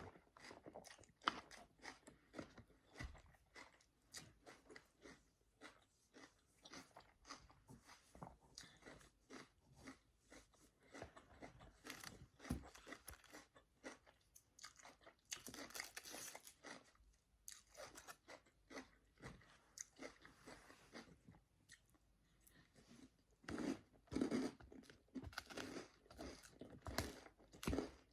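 Close-up chewing and crunching of Caesar salad: many short, irregular crisp crunches, with louder bouts of chewing in the middle and near the end.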